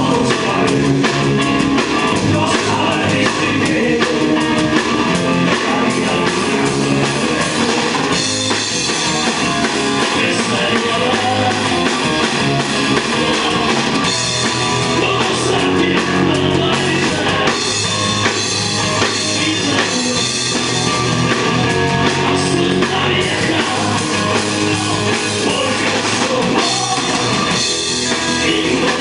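A rock band playing a rock and roll song live, loud and steady: a drum kit and electric guitars.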